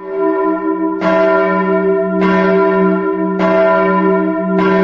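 A church bell tolling: five strokes about one and a quarter seconds apart, each ringing on into the next.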